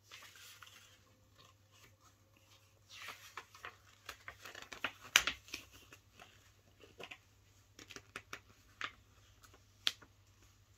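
Pages of a thin paperback picture book being handled and turned: soft paper rustling and crinkling with scattered small clicks and taps, the sharpest about five seconds in.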